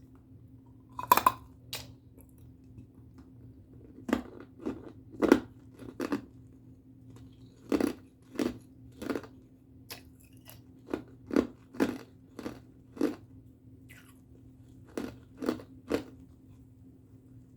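Ice being bitten and chewed close to the microphone: one loud bite about a second in, then after a pause sharp crunches in short runs, one or two a second, until near the end. A faint steady hum runs underneath.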